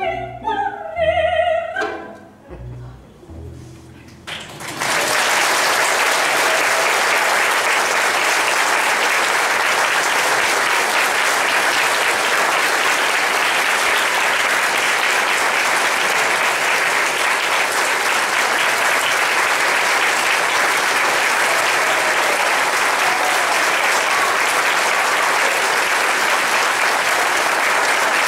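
A soprano's last sung note with the orchestra, then quieter closing notes from the orchestra. About five seconds in, an audience breaks into applause that continues steadily.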